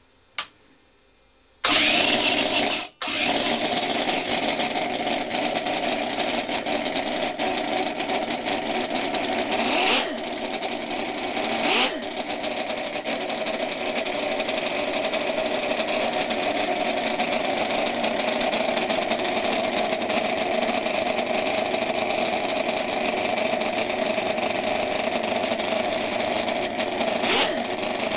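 Conley Stinger 609 quarter-scale supercharged V8 gasoline engine catching just under two seconds in and then running steadily and loudly, with a few brief rises in level around ten and twelve seconds and again near the end. A single click comes just before it starts.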